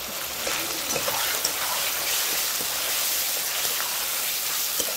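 Oil sizzling steadily in a kadai as ground spice pastes are stir-fried with onions, tomatoes and goat fat, with a few light scrapes of the spatula against the pan.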